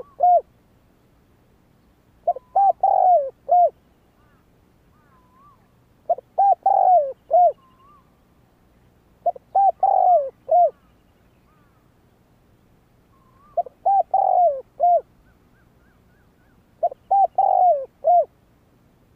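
Spotted dove cooing: five phrases, each a quick run of short coos with a longer falling coo in the middle, repeated every three to four seconds.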